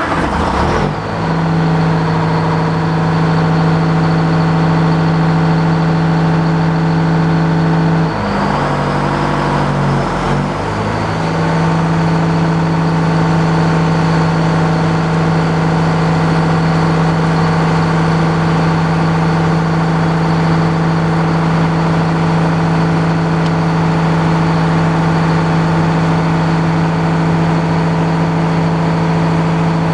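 Circular sawmill's engine running steadily and loudly, its pitch wavering for a few seconds about eight to eleven seconds in before settling back.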